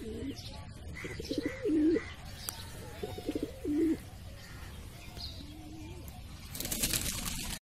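Domestic pigeon cooing: two strong, deep rolling coos that rise and fall in pitch, then a fainter third. Typical of a male's courtship display. A short burst of rustling noise comes near the end.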